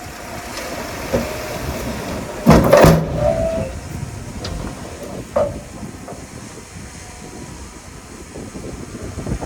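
Heavy earthmoving machinery running, a steady diesel engine noise with metallic clanks: a loud cluster about two and a half seconds in and a single clank near five and a half seconds.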